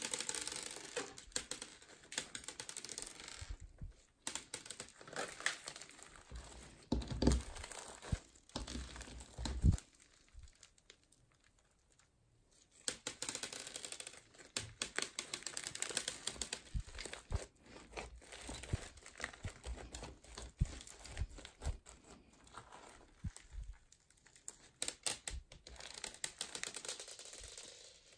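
Crunchy foam-bead slime being squeezed and stretched by hand: dense crackling and popping of the beads, with sticky tearing as the slime pulls apart. A couple of heavier thumps come around seven to ten seconds in, followed by a short quiet pause.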